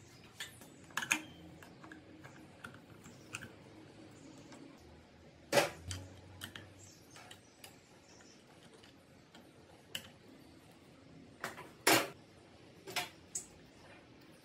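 Scattered metallic clicks and clinks of clutch plates being lifted out of a Minsk 125 motorcycle's clutch basket and handled, with two louder knocks about five and a half and twelve seconds in.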